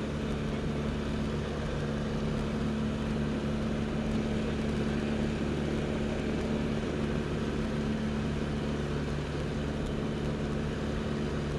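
L-13 Vivat motor glider's piston engine and propeller running steadily at power during the climb after takeoff, heard from inside the cockpit as an even, unchanging drone.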